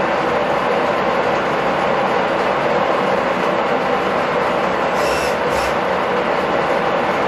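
Milling machine running, its end mill cutting an aluminium motorcycle part in a steady drone, with two brief sharper sounds about five seconds in.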